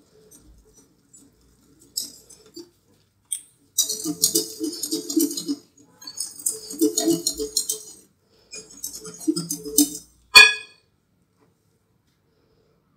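Whisk beating batter in a bowl: three bursts of rapid rattling and scraping, then one sharp ringing clink about ten seconds in.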